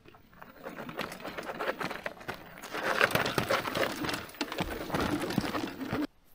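Footsteps crunching on dry gravelly dirt with rustling of dry grass and brush, coming up close to the microphone and loudest about halfway through; the sound cuts off suddenly near the end.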